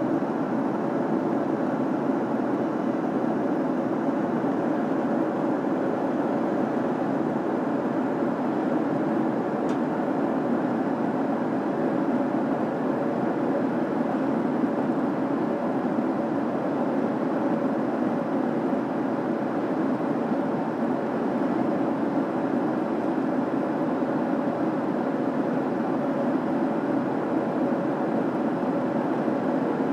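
Steady cabin noise of a Boeing 737 in cruise: engine and airflow rushing evenly, with a faint hum running through it.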